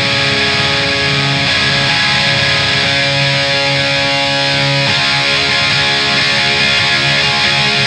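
Instrumental intro of a metal song: distorted electric guitars playing sustained chords over a steady, dense backing.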